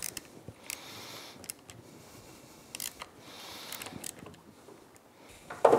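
Snap-on ratchet wrench clicking faintly in short spells as a bolt is run down, with a few light clicks of the tool on metal.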